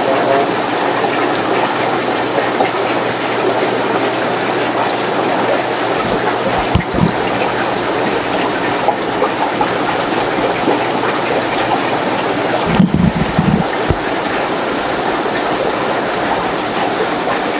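Steady rush of running water and bubbling air from rows of aquarium filters and air pumps, with a couple of brief low knocks about seven and thirteen seconds in.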